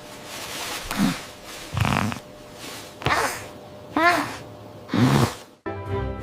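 Cartoon kitten snoring loudly: a run of snorts and breaths about once a second, one with a whistling rise and fall of pitch. Music comes in near the end.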